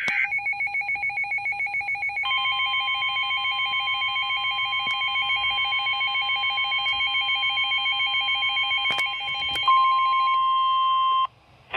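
Emergency alert warning tones. A rapidly pulsing, warbling two-pitch alarm is joined about two seconds in by a steady tone near 1 kHz, which carries on alone for the last second or so and then cuts off. These are the attention tones that signal an incoming severe weather warning.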